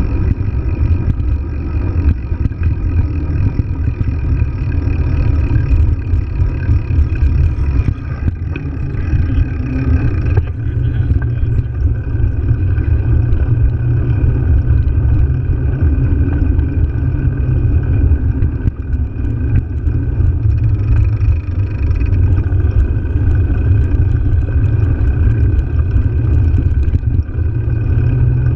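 Wind buffeting and road rumble on a bicycle-mounted action camera while riding, a steady low rumble.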